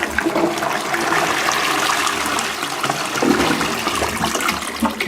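Balterley Beo Regent toilet flushing after its button is pressed: a steady rush of water through the bowl, easing off slightly near the end.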